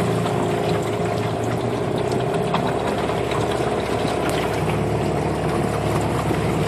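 The motor of a small flat-bottomed swamp boat running at a steady, even pitch as the boat travels along the water.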